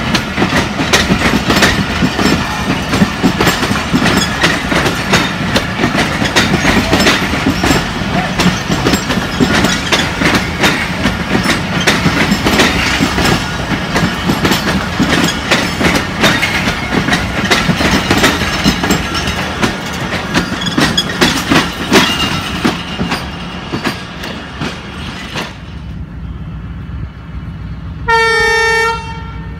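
Pakistan Railways passenger coaches rolling past at close range, their wheels clicking rhythmically over the rail joints, the sound fading as the train draws away. Near the end, a short blast of the locomotive's horn.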